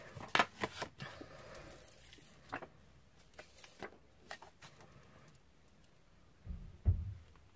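Hands handling paper and a gel printing plate: a cluster of soft crackles and rustles as the plate is lifted off the paper, a few small taps, then a dull thump near the end as the plate is set down on the desk.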